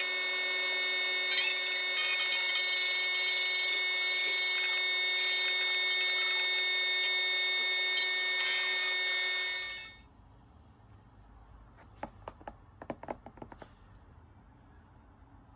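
A steady whirring, like a small electric motor running, with several fixed tones; it cuts off abruptly about ten seconds in, followed by quiet with a few light clicks.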